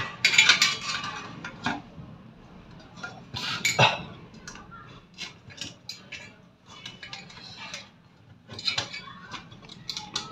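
Sheet-metal parts of a laminating machine being handled and fitted by hand, clinking and knocking in a string of sharp metallic clicks. The loudest knocks come just after the start and about four seconds in, with another cluster near the end.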